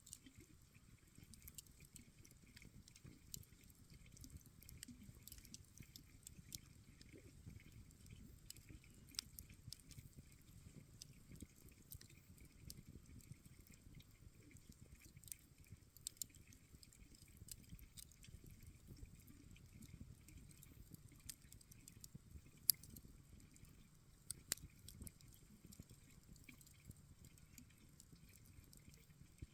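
Campfire crackling: a soft low rumble of burning wood with frequent small irregular pops and snaps, one sharper pop about two-thirds of the way through.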